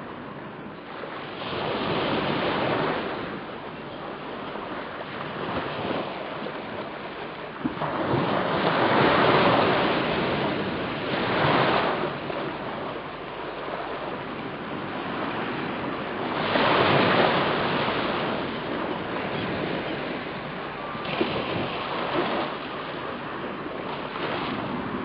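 Waves on the lakeshore with wind on the microphone: a steady rush that swells and eases in surges every few seconds.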